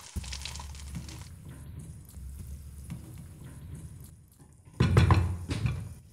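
Food simmering in a frying pan on the stove, faint over a low steady hum, then a brief louder burst of sound about five seconds in.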